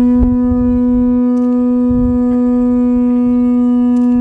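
Conch shell trumpet (pū) blown in one long, steady held note, a traditional Hawaiian ceremonial welcome call.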